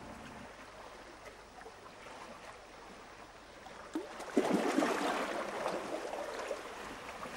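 Shallow seawater washing over rocks at the water's edge: faint at first, louder from about four seconds in, with a couple of small ticks there.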